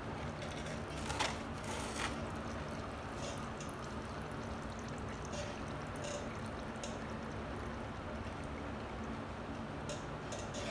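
Old fork oil draining in a thin stream from the drain-plug hole at the bottom of a Harley-Davidson Sportster fork leg, the top cap off so it runs freely, with a few brief drips or ticks now and then.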